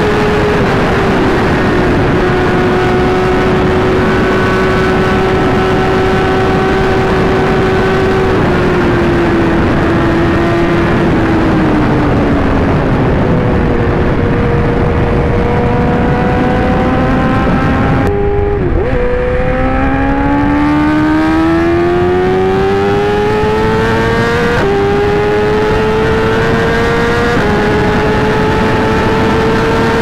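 Inline-four sport bike engine running at highway speed under heavy wind rush, heard from the rider's seat. The engine note sinks slowly as the throttle eases for the first half. About two-thirds of the way through, after a brief dip, it climbs steeply under acceleration, with a shift near the end and the pitch rising again.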